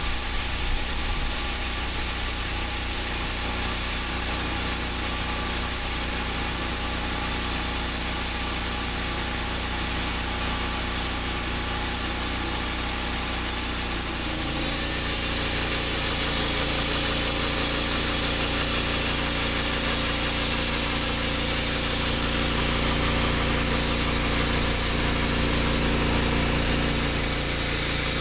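Engine of a portable band sawmill running steadily, its note shifting about halfway through as the load or speed changes.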